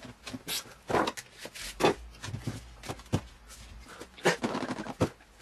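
Hands working a tight cardboard tablet box: a series of irregular knocks, taps and rustles of the cardboard as the lid is worked loose.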